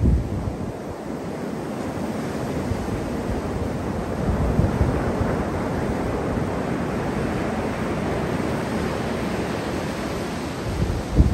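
Atlantic surf breaking offshore and washing up the sand in a steady rush that swells about four seconds in. Wind bumps on the microphone at the start and near the end.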